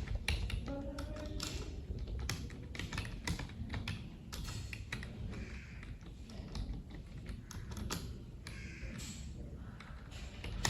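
Computer keyboard keys clacking in quick, uneven runs as someone types during a timed typing test.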